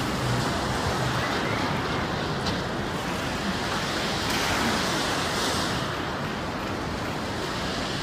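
Steady rushing noise of wind and gently breaking sea at the shoreline, with wind buffeting the microphone.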